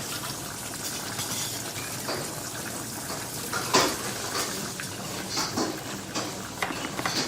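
Restaurant kitchen ambience: a steady hiss of cooking under scattered clinks of cutlery and dishes, the sharpest about four seconds in.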